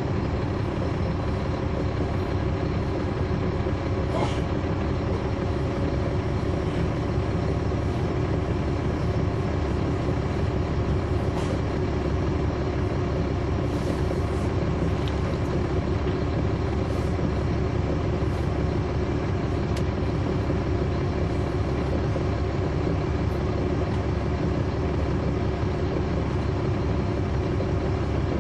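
Caterpillar C13 ACERT diesel engine of a 2009 NABI 416.15 transit bus, heard from inside the bus, running steadily with the radiator fan on. A few brief clicks and rattles come through.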